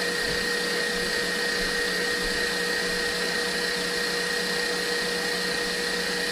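A steady electric motor whirring without a break, with a constant hum under an even hiss.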